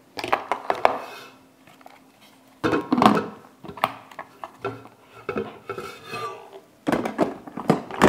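Clicks, clinks and knocks of a stainless-steel thermal carafe and its plastic lid being handled on a countertop and slid into place under a drip coffee maker, the loudest clusters about three seconds in and near the end.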